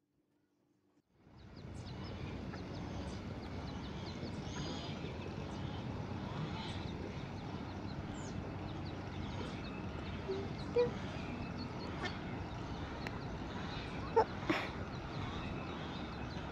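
Lakeside ambience of a mallard hen and her ducklings: a steady outdoor hiss fades in about a second in, full of short, high peeps, with brief louder calls a little past the middle and twice close together near the end.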